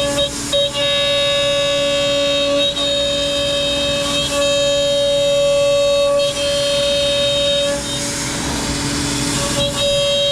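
CNC router spindle cutting ash with a 1/4-inch two-flute bit, a steady high-pitched whine with overtones that breaks briefly a few times and turns rougher for a couple of seconds near the end, with a shop vacuum running under it.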